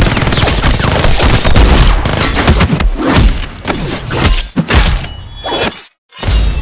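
Dubbed action-film sound effects: a rapid burst of automatic gunfire for the first few seconds, then separate heavy hits and impacts, cutting out for a moment before a deep boom near the end.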